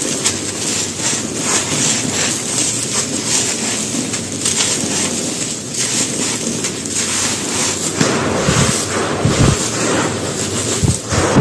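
Dry mud brick being crumbled and crushed, a steady gritty crunching and crackling of many small breaks. From about two-thirds of the way in come heavier, deeper crunches as bigger chunks give way.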